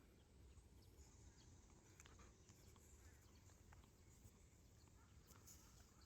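Near silence: a faint low rumble with scattered faint ticks.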